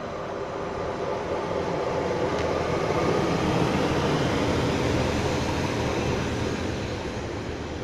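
Class 143 Pacer two-car diesel railbus running along the platform: the engine and wheels rumble louder as it passes close by, loudest about halfway through, then fade as it draws away.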